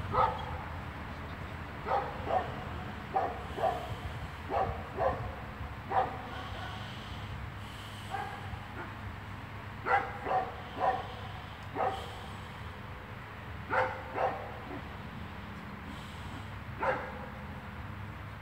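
A dog barking: about fifteen short, sharp barks, mostly in pairs and short runs, with a gap of a few seconds in the middle, over a steady low rumble.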